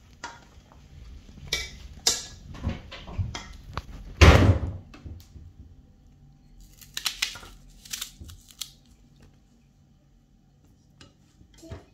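A knife cutting whole peeled onions in half by hand over a metal cooking pot, with scattered clinks and knocks of the knife and onion halves against the pot; the loudest is a single dull knock about four seconds in.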